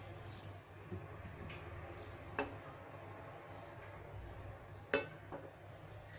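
A frying pan of oil heating on the stove, giving a few sharp ticks over a low steady hum; the loudest tick comes about five seconds in.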